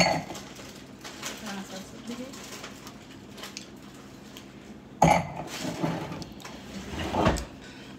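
Stemmed wine glasses clinking and knocking on a kitchen countertop as they are handled and set down. There is a sharp clink right at the start and a louder clatter about five seconds in that lasts a couple of seconds.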